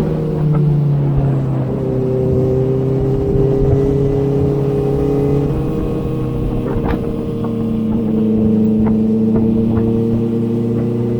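Inline-four sport motorcycle engine heard from on board while riding. The engine note drops just as the throttle eases at the start, then holds a fairly steady speed with slight rises and dips, over wind and road rumble.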